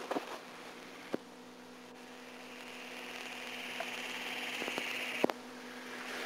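Steady electrical mains hum with hiss, slowly growing louder, with two sharp clicks, one about a second in and one near the end.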